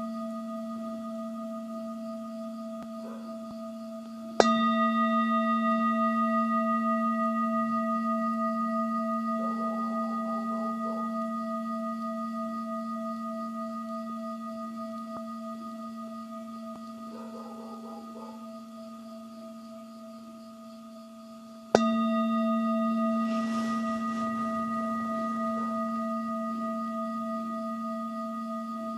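Metal singing bowl struck twice, about four seconds in and again near 22 seconds in, each stroke ringing on in a long, slowly fading tone that wavers as it dies away.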